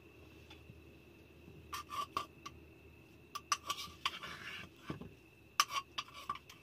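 A metal spoon clinking against steel cookware and plates as food is dished up: a series of sharp, ringing metallic clinks, with a short scrape about four seconds in.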